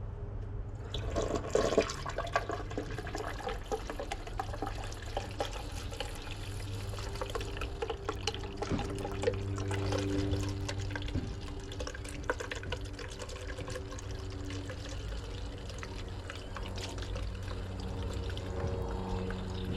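Coolant being poured from a jug into a car's radiator, liquid splashing and gurgling steadily; it starts about a second in, with a steady low hum underneath.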